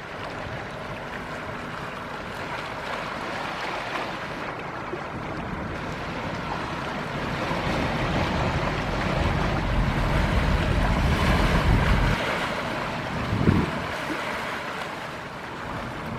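Ferry wake waves washing and splashing, with wind buffeting the microphone; the rush swells louder through the middle and eases off, with a brief thump near the end.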